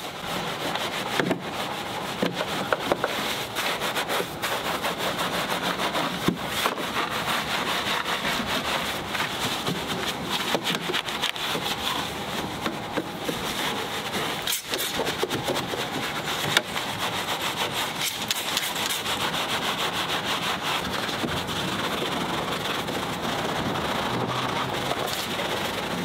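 Detailing brush scrubbing a foam-covered car engine bay: bristles rubbing over plastic and metal in rapid back-and-forth strokes, kept up steadily throughout.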